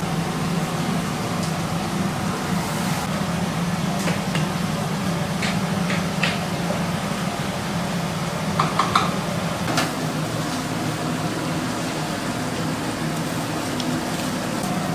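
A plastic ladle stirring and scooping thick chili seasoning paste in a plastic tub, giving a few short clicks and wet scrapes, over a steady low hum.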